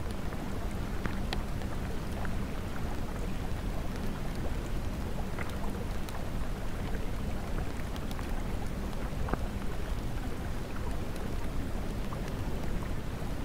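Steady rain-sound track: an even hiss of rainfall with scattered drop ticks and a low rumble underneath.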